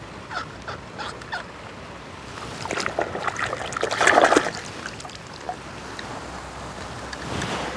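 A hand swishing a small toy car through shallow muddy water, splashing, loudest about four seconds in.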